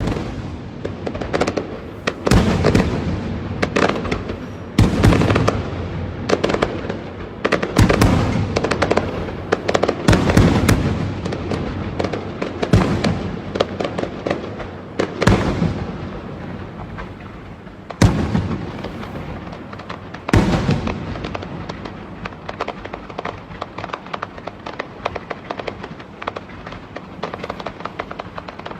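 Aerial fireworks bursting: loud booms every two to three seconds, each followed by crackling, with a steady run of smaller pops and crackles after the last big burst about twenty seconds in.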